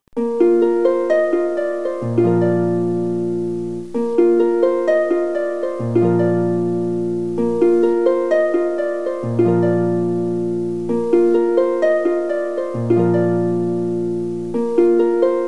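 Background music: a plucked, harp-like instrument plays a quick run of repeating notes, with a low bass note that comes and goes every few seconds.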